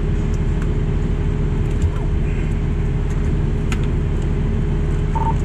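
Fire engine's diesel engine idling with a steady low rumble inside the cab. A short high beep sounds once near the end.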